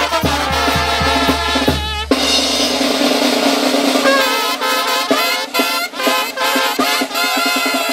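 Mexican brass banda playing, with trumpets, clarinets, trombones and tuba over a bass drum and snare drum. About two seconds in the steady bass beat stops at a cymbal crash. A held low note follows, under snare strikes and rolls and short horn phrases.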